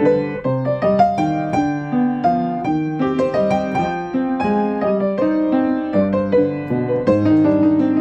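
Upright piano played with both hands: a fughetta, several voices moving against each other in a steady stream of quick, clearly separated notes.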